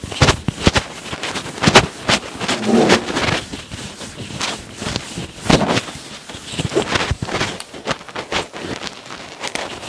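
A whiteboard being wiped clean with rapid back-and-forth strokes, giving a run of irregular rubbing and scuffing sounds.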